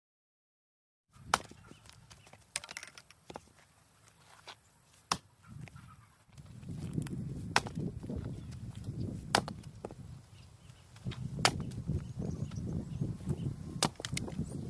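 Firewood: a string of sharp, irregular wooden cracks and knocks, with a low rustling rumble under them from about six seconds in.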